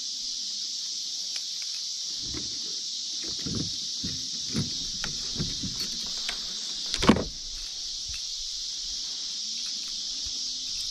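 Steady high chirring of insects, with scattered light knocks and clicks of handling and one sharper knock about seven seconds in, as a deep-set hook is worked out of a bass in a boat.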